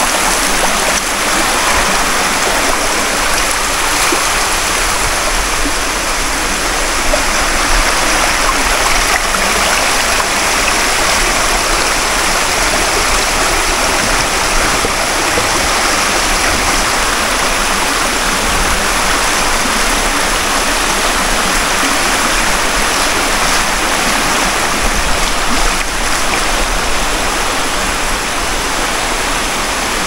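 Water of a waterfall rushing in a loud, steady, unbroken rush of noise.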